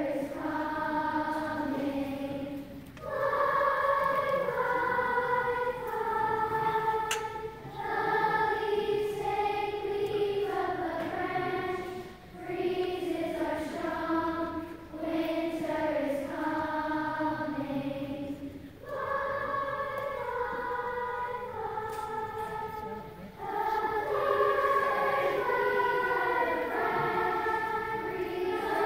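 A large group of schoolchildren singing together as a choir, in long sustained phrases with short breaks between them.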